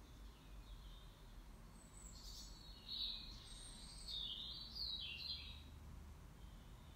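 Faint birdsong: a run of short high chirps and warbling notes, bunched between about two and five and a half seconds in, over a low steady room hum.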